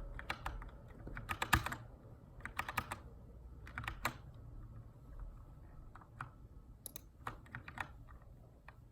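Typing on a Keychron K2 aluminium mechanical keyboard with brown switches: quick runs of keystrokes with short pauses between them, the keystrokes thinning to scattered single presses in the second half.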